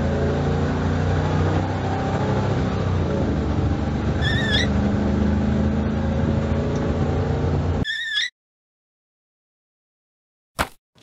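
Steady car engine drone, dubbed over hand-pushed toy vehicles, with a short warbling electronic chirp about four seconds in and again at about eight seconds, where the drone cuts off abruptly. Two sharp clicks follow near the end.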